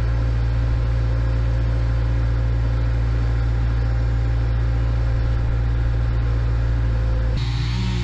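Skid steer loader's engine running steadily at constant speed close by, a loud low hum. It changes abruptly near the end.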